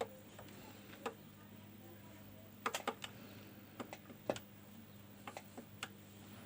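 Scattered light clicks and taps at an uneven pace, several in quick little clusters, over a steady low electrical hum.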